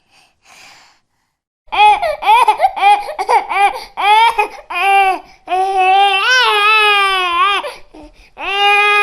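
Infant crying. After a faint start, a run of short wailing cries comes about two to three a second, then a long drawn-out wail, and another begins near the end.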